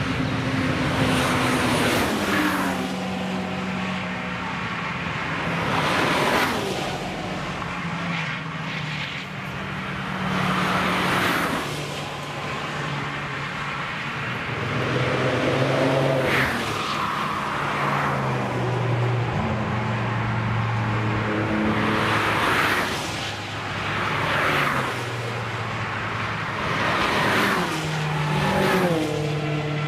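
Cars passing at speed one after another on a racetrack, several in all, engines at high revs. Each engine note swells as the car nears and then steps down in pitch as it goes by.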